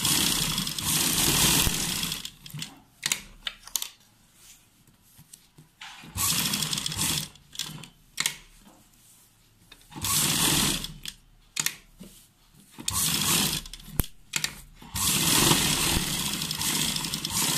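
Sewing machine stitching a buckram pattern piece onto fabric, run in about five short stop-start bursts of one to two seconds each as the curve is guided round. Light clicks and fabric handling fill the pauses.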